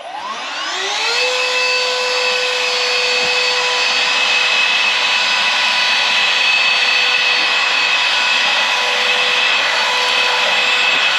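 XREXS cordless handheld car vacuum switched on: its small motor spins up over about a second to a steady high whine with a rushing of air, running on at full speed while it picks up sand.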